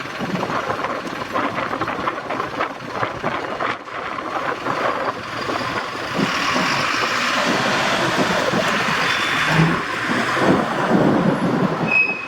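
Diesel-hauled train running through points: a steady loud rumble of engine and wheels on the rails, with brief high wheel squeals near the end.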